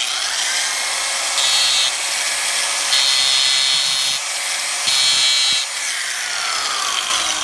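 Corded electric angle grinder starting up and running at speed, its disc grinding into a metal tabletop in three short spells, then winding down with a falling whine near the end.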